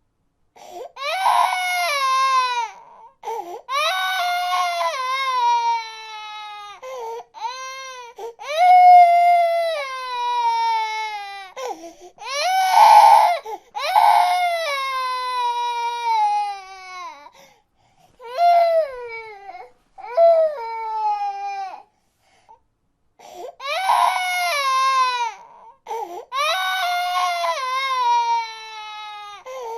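Baby crying: a string of high wails, many falling in pitch, broken by short catches of breath, with a pause of about a second and a half some two-thirds through.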